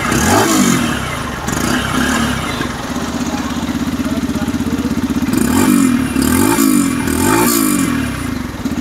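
Yamaha FZS-V3's 149 cc air-cooled single-cylinder engine, freshly started, heard at the exhaust. It is blipped a few times at the start, idles steadily for a few seconds, then is blipped three more times in quick succession, settling back to idle after each.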